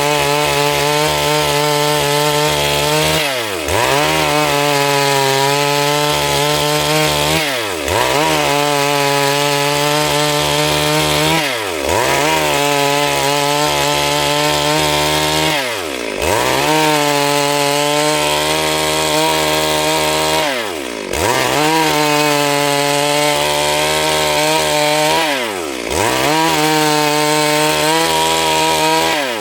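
Stihl MS 382 two-stroke chainsaw running at high revs while ripping a Siris log lengthwise into boards. Every four seconds or so its pitch briefly drops and climbs back again.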